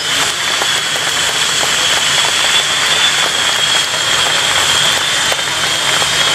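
Jet engines of the Blue Angels' F/A-18 Hornets running on the runway: a steady high-pitched whine over a loud rushing roar.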